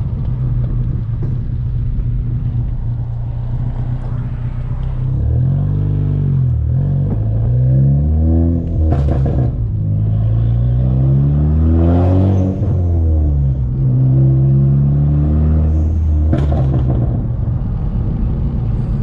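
Big-turbo Ford Focus ST engine and exhaust under way: a steady drone at first, then the revs climbing and falling several times from about five seconds in. Three sharp exhaust cracks come during this stretch, typical of its stratified pop-and-crackle tune.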